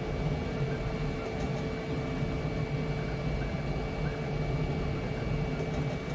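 Flashforge Adventurer 5M Pro 3D printer running mid-print: a steady whir and hum from its fans, with faint short chirps from the stepper motors as the print head moves.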